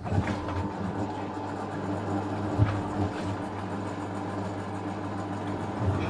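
Fisher & Paykel Smart Drive washing machine starting its spin cycle, its direct-drive motor humming steadily as the bowl spins, with a couple of brief knocks about midway. It is spinning normally rather than sitting and thumping, after the bowl was turned by hand one full turn each way.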